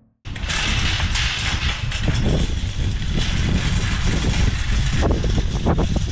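Wire shopping cart rolling across parking-lot asphalt, its wheels rumbling and basket rattling, with wind buffeting the microphone. It starts abruptly just after the beginning.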